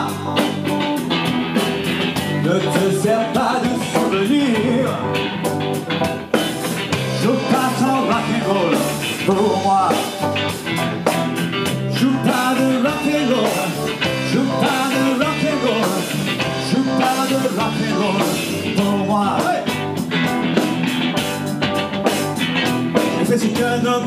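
Rock and roll band playing live: electric guitar over drums keeping a steady beat.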